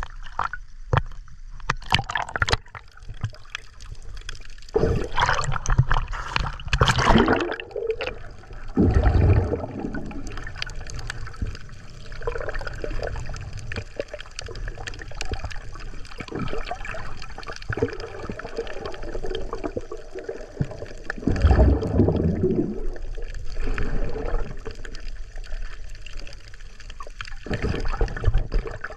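Sea water sloshing, trickling and splashing around a small fishing boat, with a couple of heavier low thumps.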